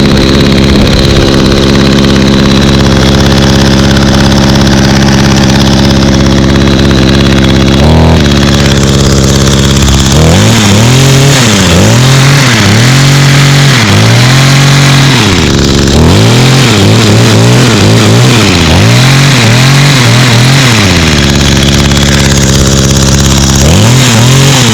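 Echo HC150 hedge trimmer's 21.2cc two-stroke engine idling steadily, then revved in a run of quick throttle blips for about ten seconds from about ten seconds in. It settles back to idle, with one more blip near the end.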